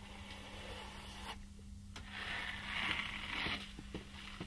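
Plastering trowel scraping over wet facade render: a rough scrape that swells about two and a half seconds in and lasts about a second.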